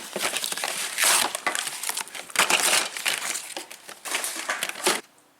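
Plastic packaging crinkling and crackling as a toy shopping basket set is unwrapped, stopping abruptly about five seconds in.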